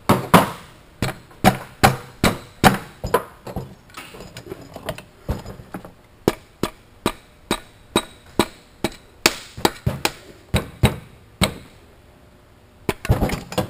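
Hammer knocking repeatedly on a Mazda CX-7 turbocharger to break the turbine housing loose from the rest of the turbo: a long run of sharp knocks, about two to three a second. The blows pause briefly near the end, then a last quick cluster of taps frees the housing.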